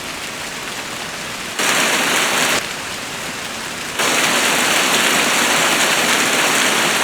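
Heavy rain pouring down in a steady hiss. The hiss jumps abruptly louder about a second and a half in, drops back a second later, and rises again about four seconds in.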